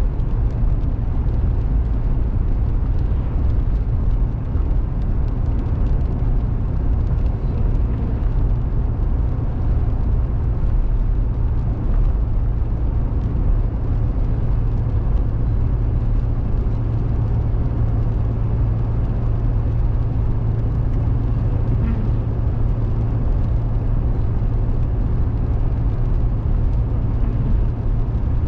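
Steady low drone of a car's engine and tyres at highway speed, heard from inside the cabin. A low hum swells for a few seconds past the middle.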